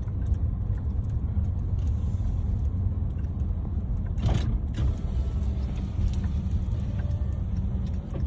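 A van's engine and tyres rumbling steadily as it is driven slowly, heard from inside the cabin, with a brief louder noise about four seconds in.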